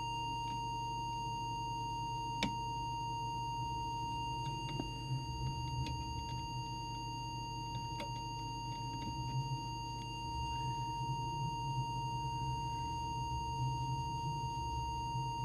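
Steady audio test tone of about 1 kHz, the tone that modulates the FM CB transmitter while its deviation is set, over a low hum, with a couple of faint clicks.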